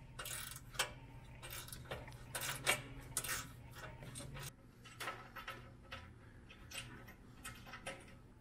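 Irregular light metallic clinks and ticks of steel bolts and washers being handled and fed by hand up through the bumper into the winch's mounting holes.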